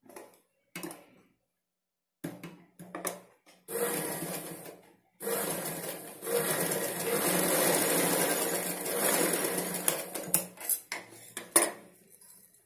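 Domestic sewing machine stitching cloth: a few short runs of stitches, then one longer steady run of about five seconds. A few sharp clicks near the end as the fabric is moved and lifted from under the presser foot.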